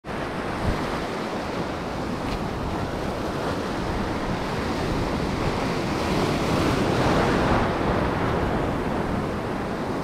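Ocean surf washing over a shallow rocky reef, a steady rush of foaming water that swells louder as a wave breaks about six to seven seconds in.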